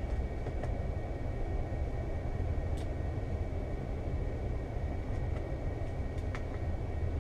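Steady low whooshing hum of an electric pedestal fan running, with a faint high whine held steady under it and a couple of light clicks as the laptop keyboard is handled.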